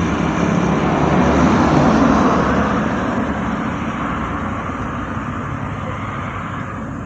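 A road vehicle passing close by, loudest about two seconds in, then fading as it moves away.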